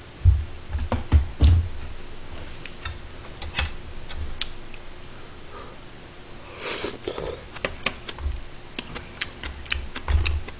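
A few heavy thumps in the first two seconds as someone sits down at the table, then sharp clicks of metal chopsticks against bowls and the pot, with the wet slurping and chewing of kimchi stew and rice being eaten.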